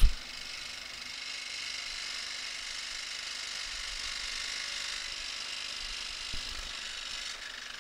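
Inverted jigsaw with a fine metal-cutting blade running steadily as a thin steel plate is fed through it by hand: an even, high-pitched rasping buzz of the blade cutting sheet metal.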